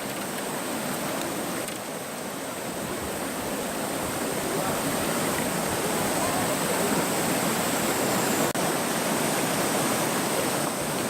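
Mountain stream water rushing steadily, an even wash of noise.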